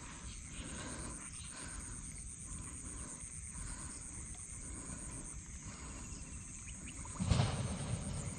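Shoreline ambience: a steady high-pitched insect drone over a low rumble of wind on the microphone. About seven seconds in comes a louder, brief thump-and-rustle.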